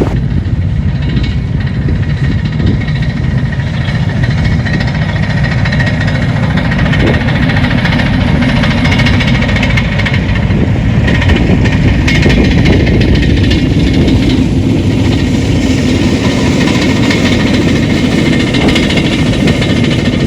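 An engine running steadily and loudly close by, with a dense, rapid rattling texture.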